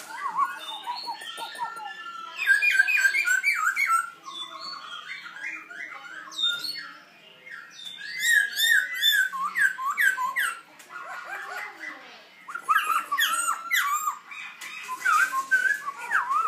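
Young black-throated laughingthrush practising its song: quick, varied whistled and chattering phrases, in about four bouts with short pauses between them. It is the rambling practice song of a bird still learning to sing.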